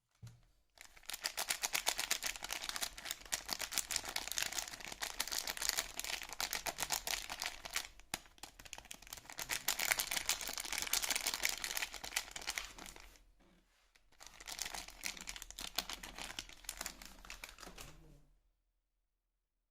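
Soap packaging crinkling and rustling as it is handled and unwrapped, in two stretches with a brief pause between them.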